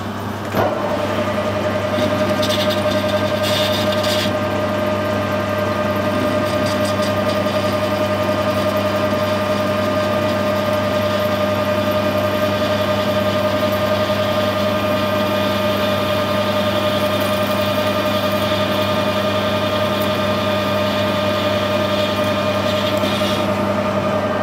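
Metal lathe running with its three-jaw chuck spinning, a steady whine over a low hum; it starts up about half a second in and winds down near the end.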